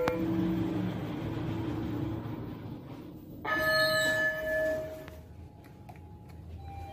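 Elevator arrival chime: a single held ding starts suddenly about halfway through and is the loudest thing. Before it there is a low hum. Near the end come faint clicks as a call button is pressed.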